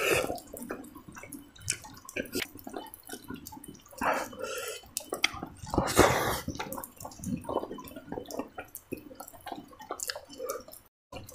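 Close-miked eating sounds: a person chewing a mouthful of rice with wet lip-smacking and clicky mouth noises, with a couple of louder breathy, crunchy bursts about four and six seconds in.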